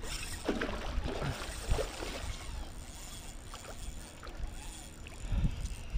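Water sloshing and splashing around a plastic kayak hull while a hooked fish is fought at the surface, with scattered light knocks.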